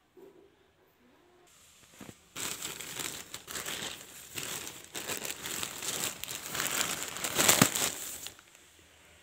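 Plastic courier mailer bag being torn open by hand and crinkled, starting about two seconds in and loudest near the end before it stops.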